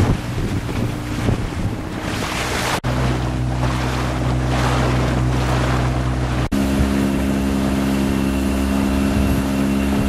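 Motorboat engine running steadily, with wind on the microphone and the rush of water against the hull. The hum breaks off and resumes at a different pitch twice, about three seconds in and again past six seconds.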